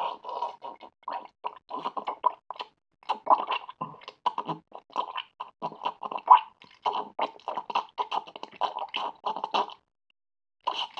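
Cartoon sound effects: a fast, uneven run of short squelching noises that stops for about a second near the end.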